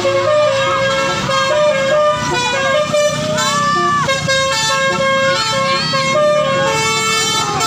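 Basuri musical vehicle horn playing a melody in held, stepped notes.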